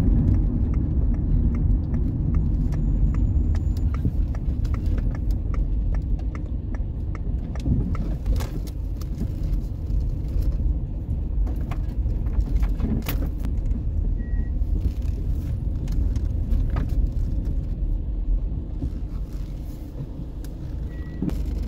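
A van's engine and road noise heard from inside the cab while driving slowly, a steady low rumble with frequent small clicks and rattles. It eases off a little near the end as the van slows.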